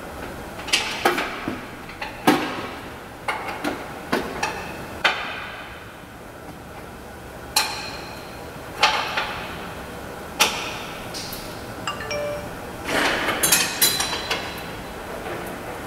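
Metal tools clanking and clicking irregularly on the upper control arm cam bolts of a 2003 Chevrolet S10's front suspension as they are turned for an alignment, with a quick run of knocks about thirteen seconds in.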